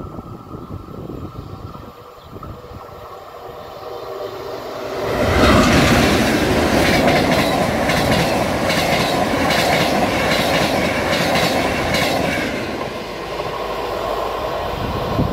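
Trenitalia regional train passing close at speed: the rush of steel wheels on rail builds over the first few seconds, turns suddenly loud about five seconds in with a rapid clickety-clack of wheels and coaches, and fades off near the end.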